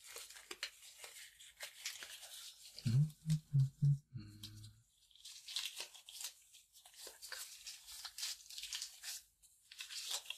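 Disposable medical gloves being pulled on and worked over the hands close to the microphone: crinkly rustling and stretching. About three seconds in, four low pulses in quick succession and a short low hum stand out as the loudest part.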